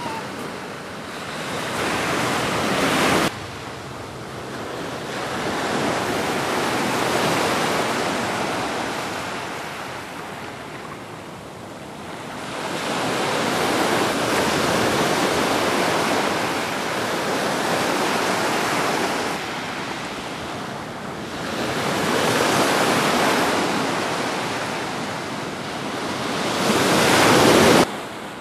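Ocean surf washing onto the shore in slow, rising and falling surges. The sound cuts off sharply about three seconds in and again near the end.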